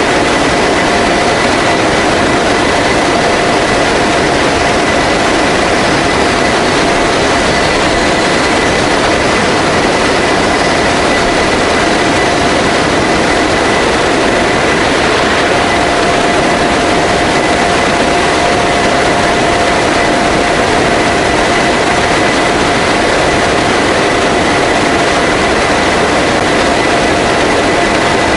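Steady, loud roar of an An-12 transport's four turboprop engines and the rushing air at its open cargo ramp in flight, with two constant whining tones running through it.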